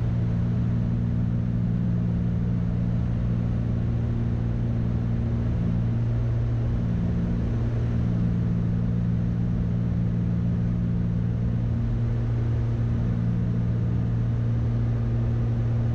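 Steady drone of a twin-engine Cessna 310's piston engines and propellers, heard in the cockpit on final approach. A higher tone within the drone fades in and out every few seconds.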